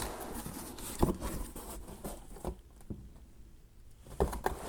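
A cardboard shipping box being cut open and unpacked with a knife: scratchy scraping and rustling of cardboard and tape. A sharp knock comes about a second in and another near the end, with a quieter spell between them.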